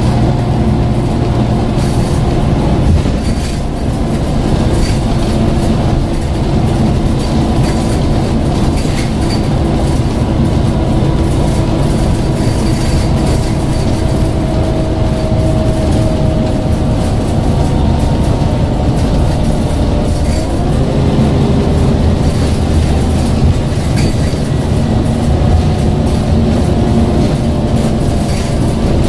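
Scania N94UD OmniCity double-decker bus driving, heard inside the passenger saloon: a steady engine and ZF gearbox drone with road noise and frequent small rattles from the body and fittings. About twenty seconds in, a whine rises in pitch as the bus picks up speed.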